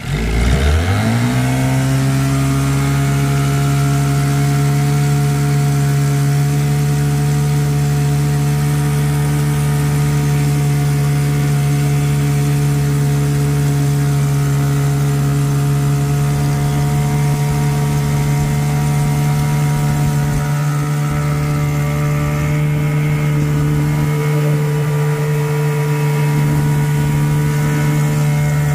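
10 hp Evinrude long-shaft outboard motor running under way, pushing the pontoon boat. It climbs in pitch over the first second or so, then holds a steady speed.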